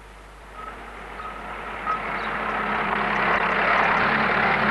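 A small jeep's engine running as it drives closer, growing steadily louder.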